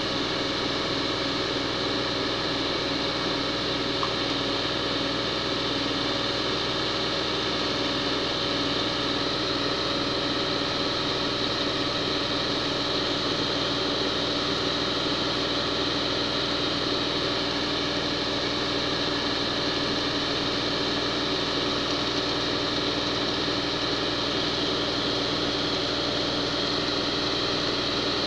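Concrete mixer truck running steadily while its drum turns to discharge concrete down the chute: an even, dense engine-and-machinery noise with several constant hum tones and no change in pace.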